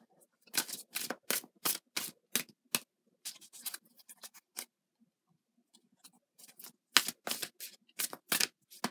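Tarot cards being shuffled by hand: a run of short, sharp card slaps, about three a second. They fade and pause for about a second around the middle, then resume more strongly.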